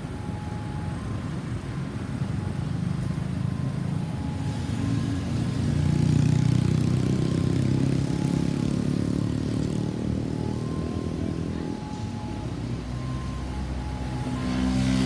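Road traffic with a vehicle passing close by, loudest about halfway through, behind a faint hi-lo two-tone siren that alternates steadily. Near the end a louder, even-pitched engine hum comes in.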